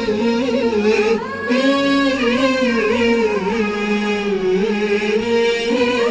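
Background music: a single voice singing a sustained, wavering melody with ornamented pitch glides.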